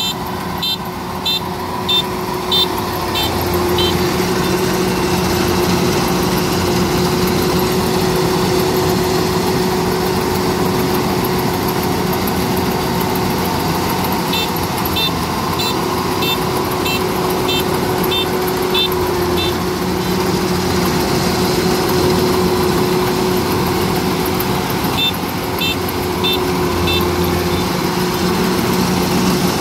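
Kubota DC-93 rice combine harvester running steadily while cutting rice, its engine making a constant drone. Three spells of rapid high electronic beeping, about three beeps a second, come from the machine's warning beeper: near the start, in the middle and near the end.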